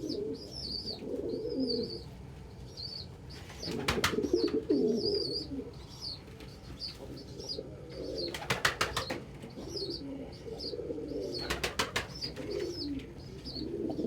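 Domestic pigeons cooing, with a steady run of high chirps above them. There are three short flurries of wing flapping, about four, eight and a half and twelve seconds in.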